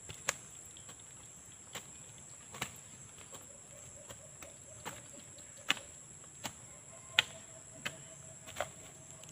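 Hand hoes chopping into soil and weeds: sharp, uneven strikes about once a second, the loudest about halfway through and again a couple of seconds later.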